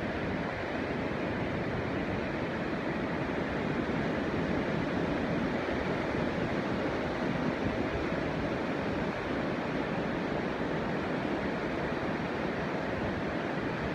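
Steady rushing outdoor background noise, even throughout, with no bird calls or other distinct sounds standing out.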